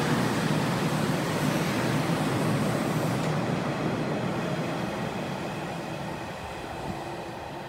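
Nishitetsu 5000 series electric train pulling out of a station, its cars rolling past close by. The high part of the noise drops away about three seconds in as the last car goes by, and the running sound then fades steadily as the train pulls away.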